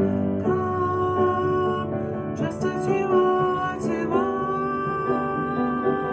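Worship song music with guitar and keyboard and long held notes that change every second or two.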